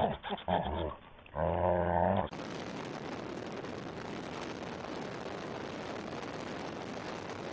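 A dog growling in uneven bursts as it hangs on a tire swing by its teeth, then, about two seconds in, an abrupt change to steady wind rushing over the microphone as a dog rides with its head out of a moving car's window.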